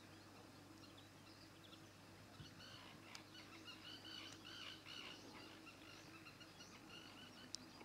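Near silence, with faint, short bird chirps repeating through the middle and a single faint click near the end.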